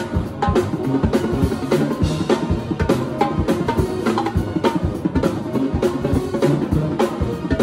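Drum kit played fast and hard: rapid, dense hits on snare, toms and bass drum, with cymbals.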